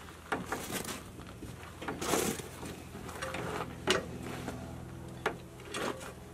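Ratchet tie-down strap being worked tight: scattered sharp clicks of the ratchet and a longer rasp of the webbing about two seconds in.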